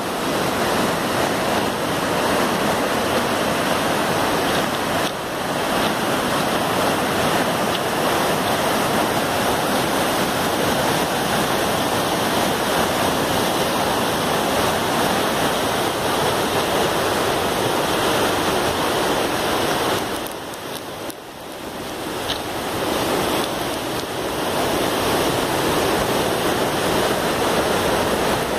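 Whitewater rapids of a mountain river rushing through a narrow rock gorge, a steady full rush of water that dips briefly about two-thirds of the way through.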